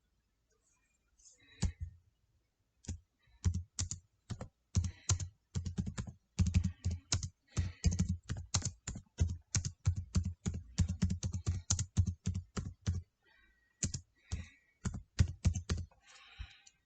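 Typing on a computer keyboard: irregular keystrokes, several a second, with a short break about thirteen seconds in.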